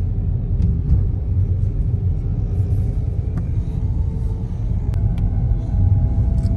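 Steady low road rumble of a moving car heard from inside its cabin, with a few faint ticks.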